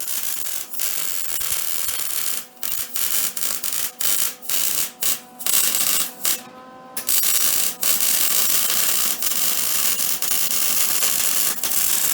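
Arc welder crackling and hissing as a weld is run on the underside of a bracket on a Yamaha Grizzly 660 ATV frame, in runs broken by brief pauses, the longest about six seconds in.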